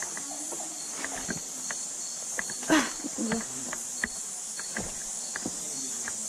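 Steady high drone of forest insects, with a short high note repeating two to three times a second. Footsteps crunch on rock and dry leaves, with one louder scrape a little under three seconds in.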